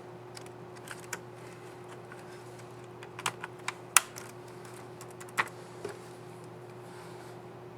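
Keys on an Acer Aspire E 15 laptop keyboard being pressed: a scatter of short, sharp clicks at uneven intervals, the loudest about four seconds in, over a steady low hum.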